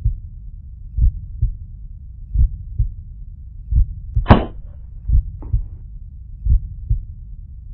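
Heartbeat sound effect laid over a slow-motion replay: paired low thumps repeating about every 1.4 seconds, with a short rising whoosh a little past four seconds in.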